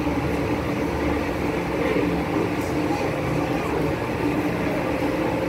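Steady droning background hum with a constant low tone, under faint distant voices.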